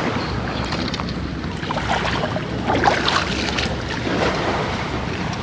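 A person wading through muddy water, with irregular splashes and sloshes from the legs moving through it, over steady wind buffeting on the microphone.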